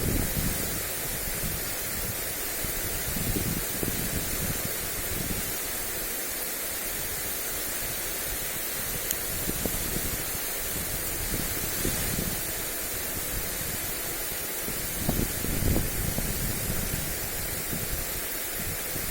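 Lawn sprinkler spraying water over grass with a steady hiss, while wind gusts buffet the microphone as a low, uneven rumble, strongest about three-quarters of the way through.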